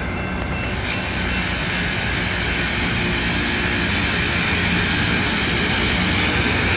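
Loram rail grinder at work, its grinding stones on the rails making a loud, harsh hiss over the low drone of its engines. The sound grows steadily louder.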